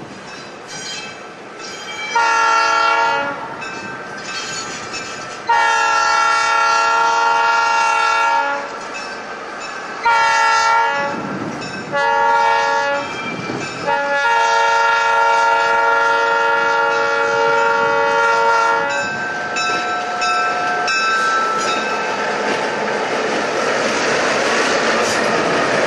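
Southern Pacific GP9 diesel locomotive's horn sounding the grade-crossing signal: two long blasts, a short one, then a final long blast that ends about 19 s in. After the horn stops, the locomotive's diesel engine and its wheels on the rails grow louder as it passes close by.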